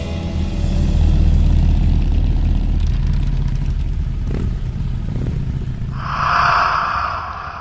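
Low, steady engine rumble that thins out about five seconds in. A loud whoosh swells up about six seconds in and fades.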